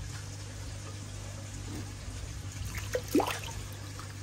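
Steady trickle of running water over a low steady hum, with one short rising sound about three seconds in.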